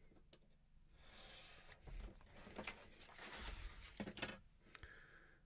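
Faint scraping of a craft knife drawn through printed card along a steel ruler, then the rustle of the card sheet being lifted and moved on a cutting mat, with a few light clicks near the end.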